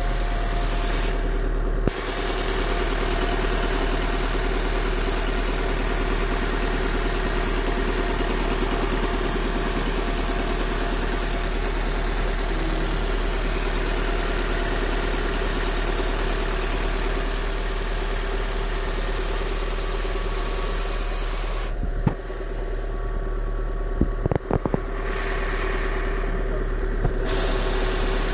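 Honda Civic 1.7 inline-four engine running steadily from a fully cold start, with a steady high tone over the engine sound: the strange cold-start noise the owner cannot place. A few sharp clicks come near the end.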